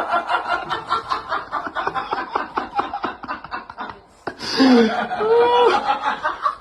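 A person laughing hard in rapid, breathy pulses. After a short break about four seconds in come a few voiced sounds that slide up and down in pitch.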